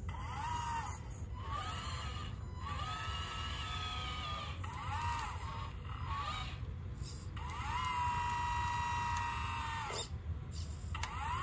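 Electric motor and hydraulic pump of a 1:14 RC Caterpillar 988 wheel loader whining as the controls are worked. It comes in a run of short whines that rise and fall in pitch. About seven seconds in it holds one long steady whine for roughly two and a half seconds, then cuts off suddenly.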